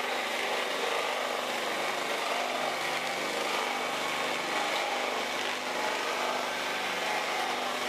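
Small electric motor-generator set running steadily: an even mechanical hum with a whirring noise over it.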